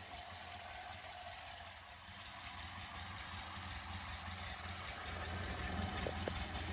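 1928 Ford Model A's four-cylinder engine idling steadily.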